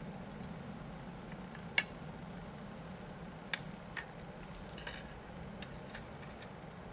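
Scattered light clicks of eating utensils against dishes at a meal, a few separate taps with the sharpest about two seconds in, over a steady low background hum.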